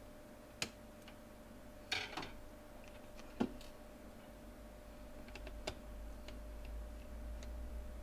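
Light clicks and taps of a Phillips screwdriver and small screws being handled against a netbook's plastic base and a desk: three sharper clicks in the first four seconds, then a scatter of faint ticks.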